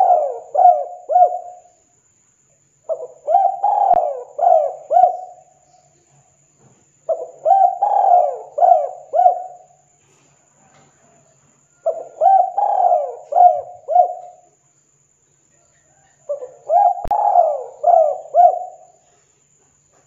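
Spotted dove cooing, with phrases of four or five quick rolling coos repeated about every four to five seconds, five phrases in all.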